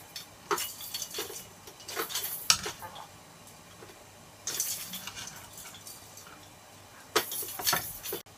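Kitchen knife cutting boneless chicken thighs into small pieces on a plastic cutting board: irregular taps of the blade on the board, with a stretch of scraping a little past halfway and a few more knocks near the end.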